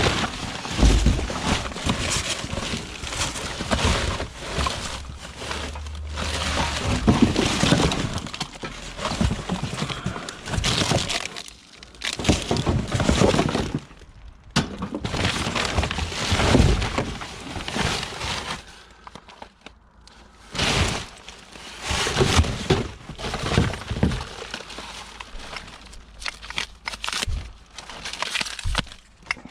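Clattering, scraping and cracking of discarded junk being rummaged through and pulled apart by hand, in irregular bursts with sharp knocks and short pauses between.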